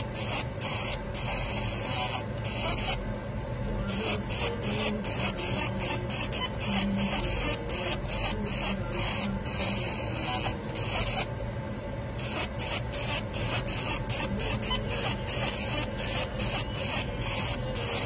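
Fiber laser marking machine engraving metal pigeon rings: a steady hiss whose high part cuts out and resumes many times a second as the laser fires in short passes.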